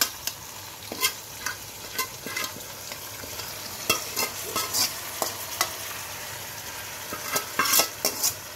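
Thick masala marinade being scraped out of a steel bowl into a steel pot: irregular scrapes, taps and clicks of metal on metal and wet plops, over a steady hiss.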